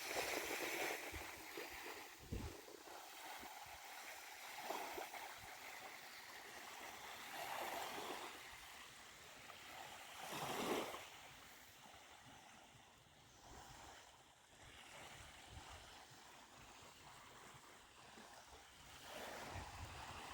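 Sea waves washing onto a shore, the surf swelling and falling away every few seconds, with one louder wash about halfway through.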